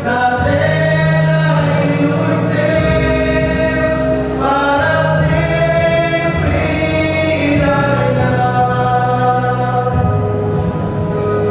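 Male vocal quartet singing a religious song in harmony through microphones, holding long chords that change every second or two.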